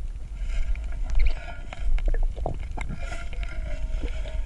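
Underwater sound picked up by a submerged camera: a steady, muffled low rumble with scattered small clicks and a faint droning tone, swelling briefly about one and two seconds in.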